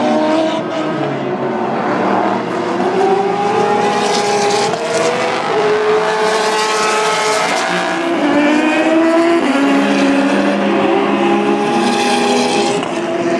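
Racing car engines at full throttle as GT cars pass, the Porsche 911 GT3 RSR's flat-six among them. The pitch climbs and steps back down several times through upshifts, with more than one engine heard at once.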